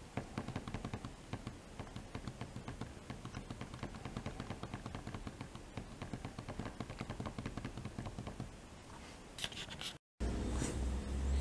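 Plastic push-buttons of a digital 12V programmable timer switch clicking in rapid, repeated presses as a program time is set. Near the end, after a brief dropout, a steady low hum.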